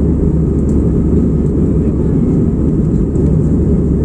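Jet airliner's engines during take-off: a steady low rumble that holds an even level throughout.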